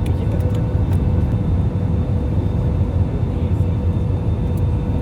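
Airbus A320 cabin noise on approach: a steady, dense low rumble of engines and airflow heard from inside the cabin, with a thin steady hum above it.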